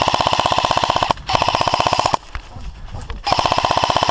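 Airsoft gun firing on full auto in three sustained bursts, a fast even stream of sharp clicks with a steady whine under them. The first burst stops about a second in, the second runs for under a second, and the third starts about three seconds in.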